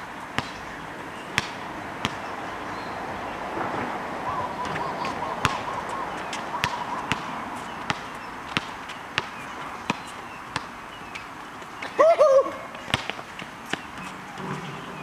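Basketball being dribbled on an asphalt court: sharp single bounces roughly every half second to a second. About twelve seconds in, a brief loud voice, the loudest sound, rises and falls in pitch.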